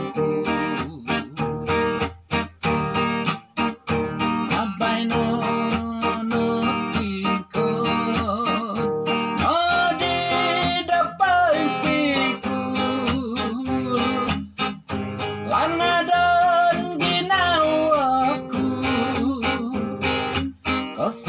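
Acoustic guitar strummed in a steady rhythm, with a man singing along in long, gliding held notes about ten seconds in and again near the end.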